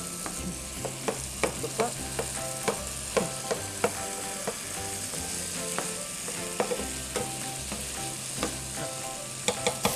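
Seafood and vegetable filling of cuttlefish, potatoes and broccoli sizzling in a frying pan while a spoon stirs it. Short knocks and scrapes of the spoon against the pan come every half second or so over a steady sizzle.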